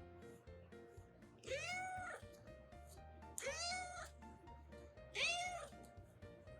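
Kitten meowing three times, each meow rising then falling in pitch and lasting under a second, about two seconds apart.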